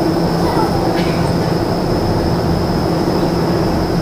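Indoor skydiving vertical wind tunnel running at flying speed: a loud, steady roar of rushing air and fans, with a constant low hum and a thin high whine over it.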